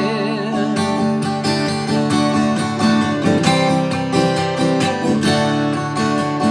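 Acoustic guitar strummed in a steady rhythm between sung lines of a slow country-style song.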